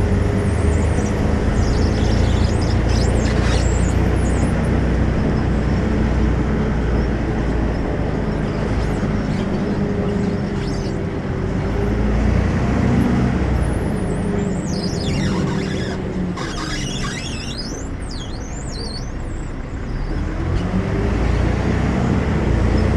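Volvo B12M bus's 340 hp diesel engine with ZF gearbox running under way. The engine note sinks through the middle, with a run of high squeals, then climbs again near the end.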